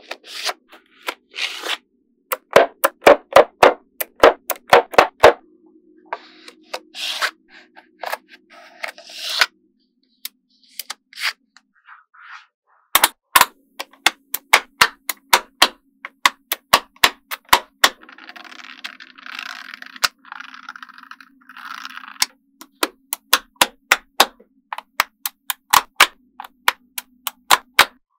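Small magnetic balls clicking sharply against each other as rows and strips are snapped together, in quick runs of clicks. Some stretches have a rattling, scraping sound as a strip of balls is slid and pressed into place.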